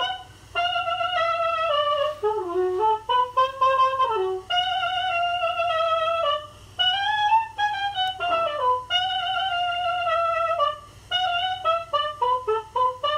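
Soprano saxophone playing a solo jazz melody line of long held notes joined by slides, with a dip in pitch about two to four seconds in.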